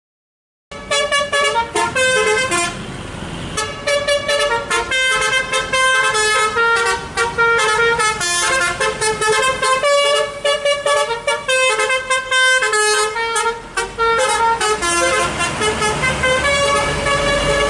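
Telolet V3 multi-tone bus horn playing rapid melodic runs of short notes, one tune after another. It starts abruptly about a second in, and a low rumble grows underneath near the end.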